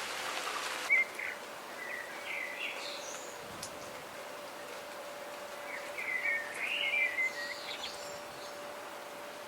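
Steady rain for about the first second, cut off suddenly, then a quieter outdoor background in which a small songbird chirps in two bursts of short calls, one early and a louder one past the middle. A faint steady hum runs underneath.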